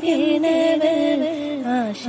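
A woman singing a Malayalam folk song (nadan pattu) in long held notes that slide from one pitch to the next, the line dipping lower near the end.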